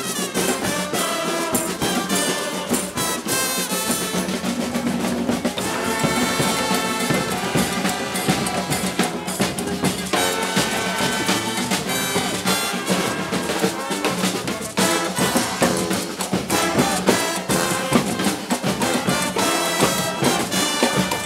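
Street brass band playing on the march: brass horns carrying a tune over a busy drum beat.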